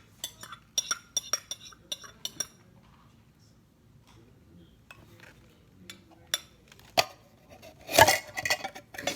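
Spoon and dishes clinking while a graham fridge cake is layered: a quick run of ringing clinks in the first two and a half seconds, a few single knocks later, and a louder clatter about eight seconds in.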